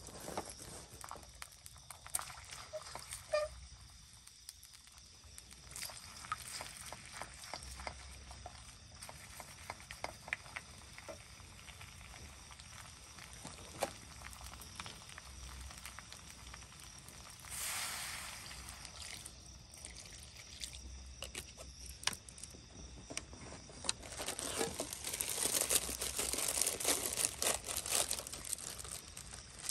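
Soft sizzle of eggs cooking in a steel wok on a small gas burner, with scattered light taps and clicks. Near the end a plastic packet crinkles, louder than the rest.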